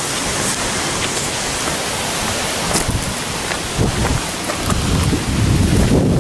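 Steady rush of a river flowing over rocks, an even hiss. A low rumble rises in the last second or so.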